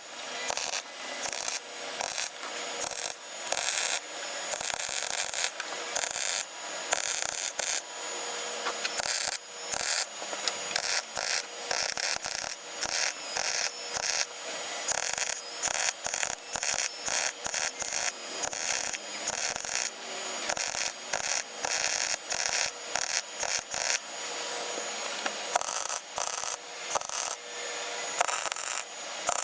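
MIG welder crackling as it lays weld on a steel floor panel, in many short stop-start bursts of tack or stitch welding.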